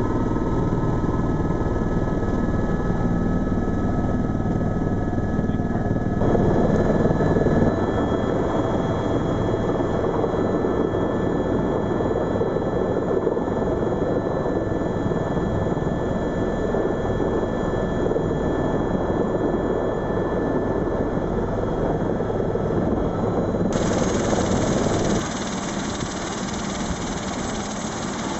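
Eurocopter EC130 Ecostar helicopter's turbine and main rotor running, heard loud from inside the cabin as it comes in low over the airfield. Its tone changes abruptly a few times, and near the end the running helicopter is heard from outside, a little quieter.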